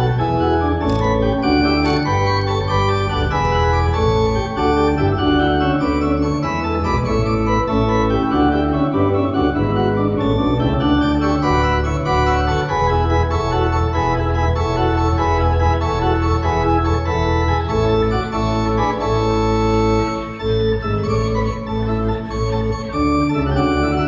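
Classical organ music: held chords that change every second or so over a low bass.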